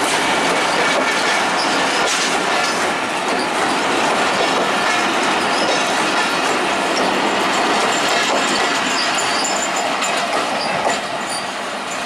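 Broad-gauge passenger train coaches rolling past close by: a steady clatter and rumble of steel wheels on the rails with short, faint high-pitched wheel squeals, easing off slightly near the end as the last coach moves away.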